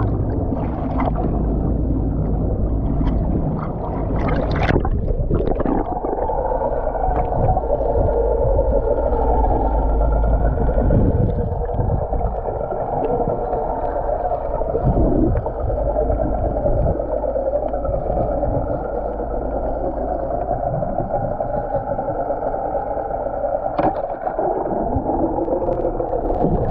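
A boat engine running steadily with a low rumble and a droning hum, with some water sounds.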